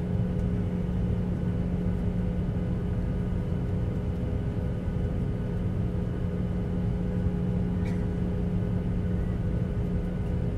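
Boeing 737's turbofan engines at taxi power heard from inside the cabin: a steady rumbling hum with a couple of constant held tones.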